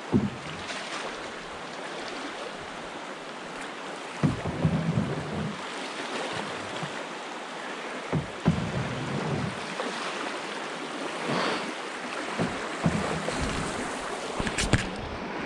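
Rushing whitewater of a brook's class II rapids, a steady hiss around an open canoe. A few short knocks and low rumbles come through, near the start, around four and eight seconds in, and near the end.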